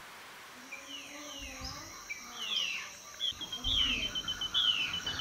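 Rainforest birds calling: several short whistles that slide downward, then a fast trill of repeated notes from about three seconds in, over a steady high-pitched insect buzz.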